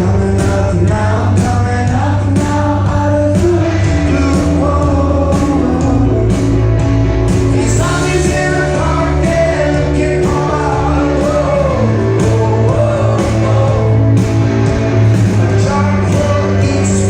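Rock band playing live, with a lead vocal over guitars, bass and drums, heard from the audience in a concert hall.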